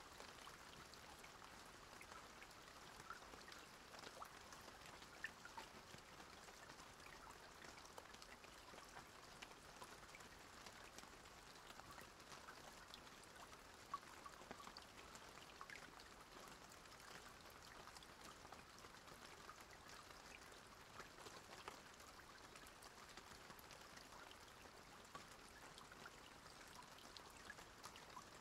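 Near silence: a faint, even hiss with scattered tiny crackles.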